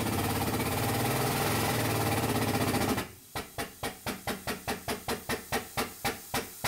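Hydraulic pump running steadily with a hiss and low hum. About three seconds in it switches to a quick, regular clicking, about four a second and slowing a little, as pressure builds in the rig loading a 5/8 inch bolt.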